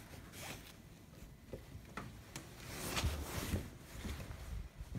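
Footsteps and the rustle of a hand-held phone being carried while walking, with a few light clicks; the loudest rustle comes about three seconds in.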